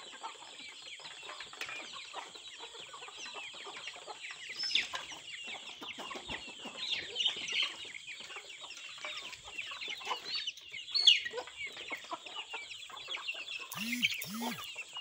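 A flock of Aseel and fancy chickens clucking, with many chicks peeping in quick short high calls, a few louder calls standing out. A steady high-pitched drone runs underneath.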